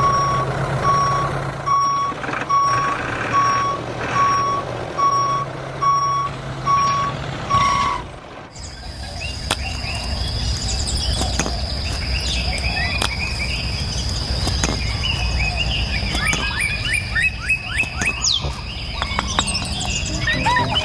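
Vehicle reversing alarm beeping evenly, about three beeps every two seconds, over a low hum; it stops about eight seconds in. After that comes a steady high whine with many short chirps and clicks.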